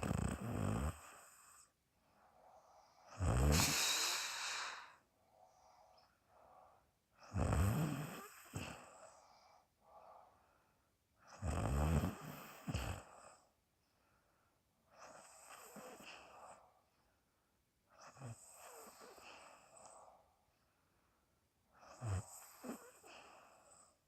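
A woman snoring loudly in her sleep, seven breaths about every four seconds, each with a rattling snore and a puff of air blown out through the mouth. The snores grow softer and more airy in the second half.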